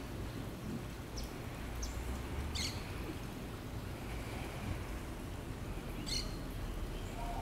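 Birds chirping: a few short, high chirps a second or so apart, then a longer gap before another one about six seconds in, over a low, steady background rumble.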